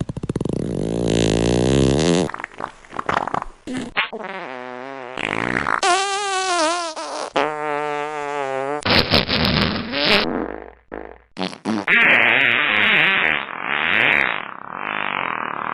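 A run of fart sound effects cut back to back, about eight of them, each lasting one to three seconds. Several in the middle are pitched, buzzy blasts that waver up and down in pitch, while the last one is a longer, breathier, noisier release.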